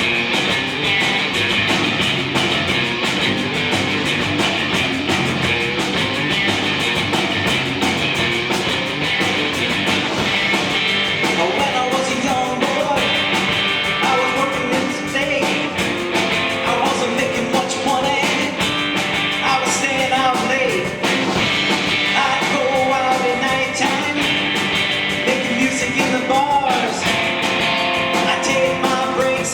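Live rock band playing a rock-and-roll song with electric guitar, bass and drums at a steady loud level; a lead vocal comes in about twelve seconds in.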